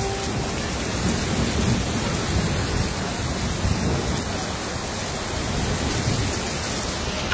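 Heavy rain pouring steadily onto a flooded street, with a low rumbling underneath.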